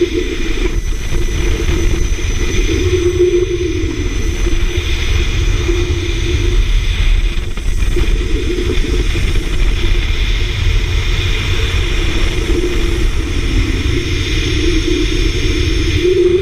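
Zipline trolley pulleys rolling along the steel cable, a steady hum that wavers and swells in pitch, under heavy wind rumble on the microphone from the ride's speed.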